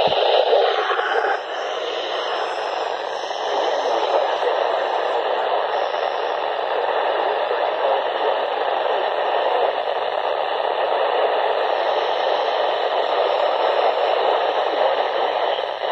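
Midland weather radio's speaker giving out a steady static hiss, tuned to a weather-band frequency with no readable station coming through; a short thump right at the start.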